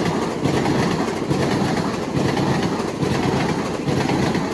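Long Island Rail Road passenger train passing close by, its wheels clacking in a steady rhythm over the rail joints.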